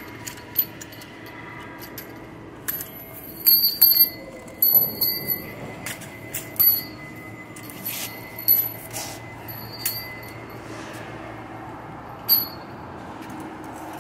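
Steel carabiners and rings of a cable lifeline clinking together as they are handled: a quick run of sharp, ringing metal clinks a few seconds in, then single clinks every second or two.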